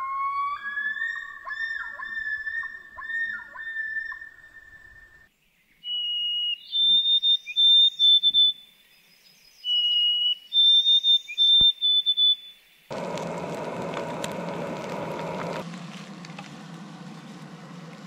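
Wild birds calling: a long, wavering wailing call, then a clear whistled song of a few stepped high notes sung twice. A steady rushing noise follows near the end.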